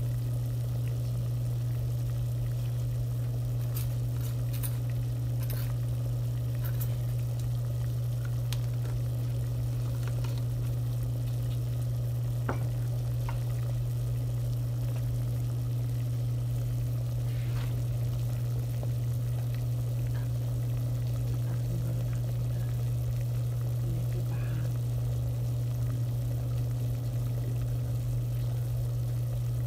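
A pot of water with chopped vegetables at a rolling boil, bubbling steadily under a loud, steady low hum, with a few faint clicks.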